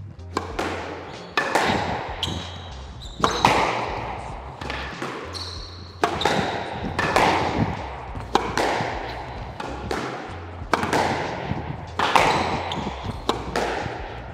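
Squash rally: about a dozen sharp cracks of the ball off rackets and court walls, roughly one a second, each ringing in the enclosed court. A couple of brief high squeaks come in among them.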